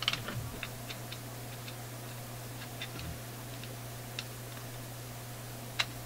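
Screwdriver working a stubborn screw in a metal chassis: scattered small clicks and scrapes of the tip against the screw and metal. There is a cluster of them at the start and a sharper click near the end, over a steady low hum.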